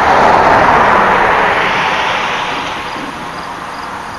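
A passing road vehicle: a rushing noise, loudest in the first second, then fading away over the next two seconds.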